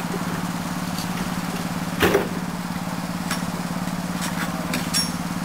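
Small engine of a miniature railway locomotive idling steadily with a fast, even pulse, with one loud knock about two seconds in.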